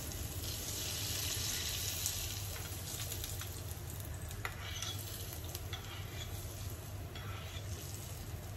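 Hot tempering oil with mustard seeds and curry leaves sizzling as it is poured and spooned from a small frying pan over a steamed dhokla. The sizzle slowly dies down, and a spoon gives a few light clicks against the pan.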